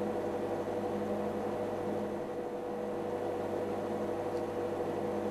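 Steady mechanical hum with several held tones under an even hiss, unchanging throughout.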